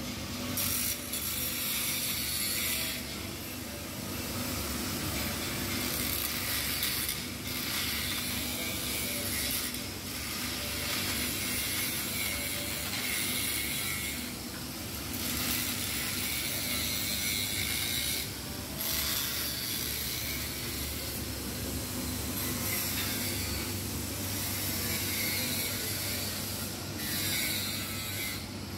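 Angle grinder grinding a pipe weld, cleaning the weld path of a MAG-welded pipe joint. The grinding is continuous, with brief breaks every few seconds as the disc lifts off the metal.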